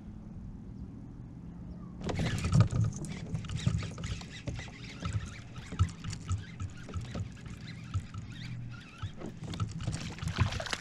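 Irregular knocks and clicks of rod, reel and kayak handling as a hooked bass is reeled in from a pedal kayak, starting suddenly about two seconds in. The bass splashes at the surface near the end.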